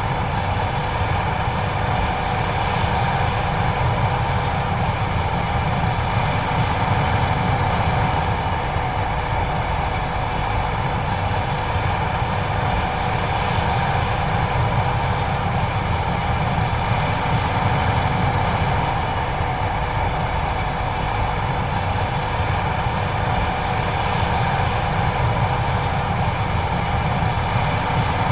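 John Deere 9570STS combine harvester running steadily while harvesting corn: a constant machine drone with a few steady tones held over it.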